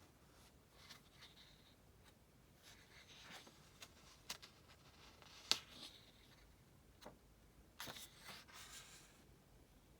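Faint rustling of paper and a few soft clicks from a paper book being handled, the sharpest click about halfway through.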